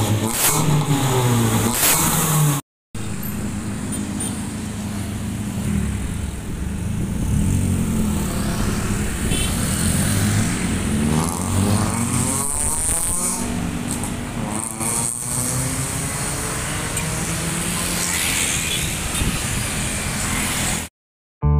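Toyota Avanza with an aftermarket 4-2 header, stainless resonator and stainless muffler, revved up and down, the exhaust tuned for a crisp, dry note that does not crackle. After a brief cut come road traffic sounds: the car and motor scooters driving past, with several passing vehicles sweeping by.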